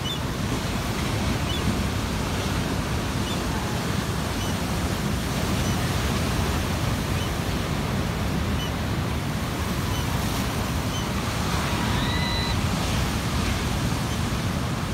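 Ocean surf breaking and washing over a rocky shoreline: a continuous, steady rush of waves. A brief high, whistle-like tone is heard about twelve seconds in.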